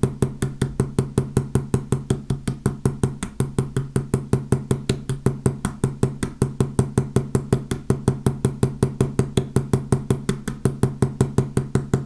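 Fretz riveting hammer's slender pointed face lightly tapping the end of a wire rivet at an even pace of about five taps a second. These are the gentle early strokes of riveting, slowly spreading the wire's tail into a nail head.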